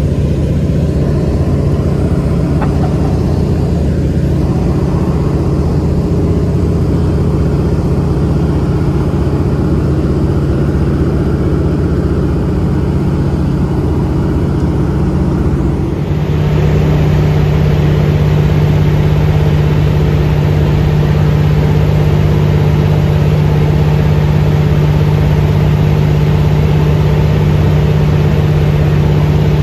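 DHC-2 Beaver's radial piston engine and propeller droning steadily in cruise, heard inside the cabin. About halfway through the drone gets slightly louder, with a stronger low hum.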